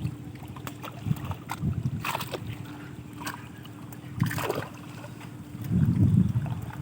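Water splashing and sloshing around a fishing boat, with a few sharp knocks and a faint steady hum in the middle.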